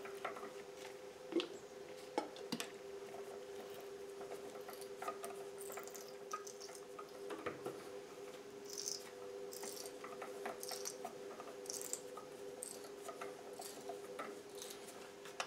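A tap being turned by hand with a T-handle wrench to cut threads in metal: faint scattered clicks and short squeaks as the tap cuts. A steady low hum runs underneath.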